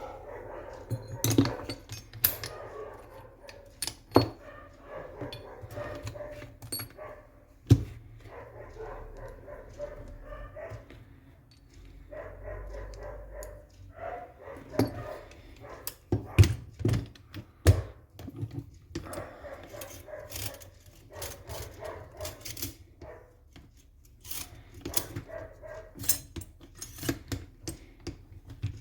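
Irregular sharp clicks and knocks of hand tools and small metal and plastic parts as an airsoft M14 rifle is taken apart.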